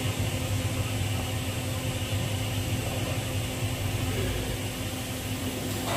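TIG welding arc on a steel pipe joint, a steady even hiss with a low electrical hum underneath.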